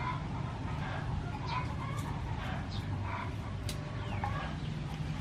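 Chickens clucking repeatedly, with a few short scrapes of a knife peeling a carrot.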